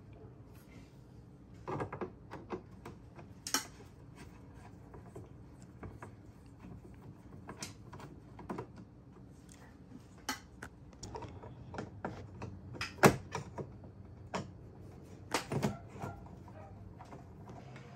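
Screwdriver tips clicking and scraping against the plastic third brake light housing of a Honda Pilot as it is pried loose from the hatch: scattered, irregular clicks and taps, the sharpest about 13 seconds in.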